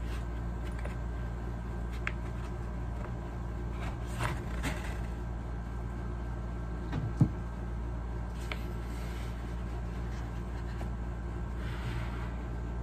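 Handling of a nylon pistol bag as a pistol is worked into its inner compartment: light fabric rustles and a few small clicks, with one dull knock about seven seconds in. A steady low hum runs underneath.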